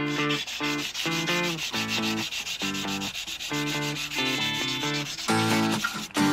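Hand sanding of a thin steel knife blade with abrasive paper wrapped on a wooden block: a rhythmic rasp of back-and-forth strokes, about two a second.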